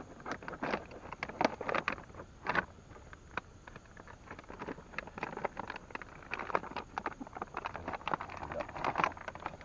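Plastic packaging being handled, crinkling and rustling with irregular sharp crackles.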